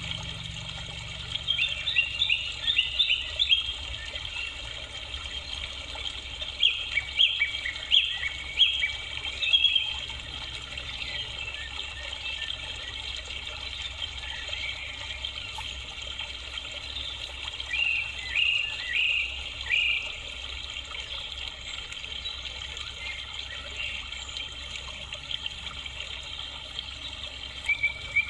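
Birds chirping: quick high notes in three short spells and another near the end, over a steady background hiss.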